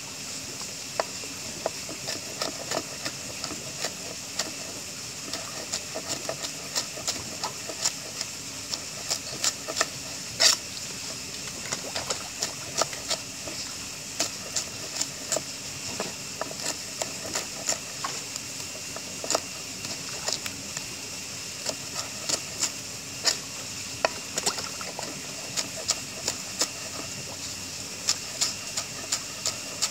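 Kitchen knife chopping green leaves on a wooden board: irregular sharp taps, a few a second, with one louder chop about ten seconds in, over a steady hiss.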